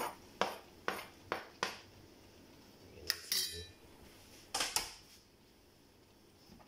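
Sharp knocks and clinks of a cutting board and utensil against a cooking pot as chopped green chilies are scraped into it: four quick taps in the first two seconds, then a few more knocks and scrapes around three and five seconds in.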